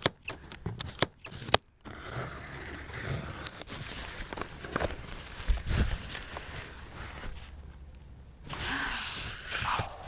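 Scissors snipping plastic packing straps on a cardboard box, a few sharp clicks, followed by cardboard flaps being opened and plastic wrapping rustling and crinkling as the contents are handled.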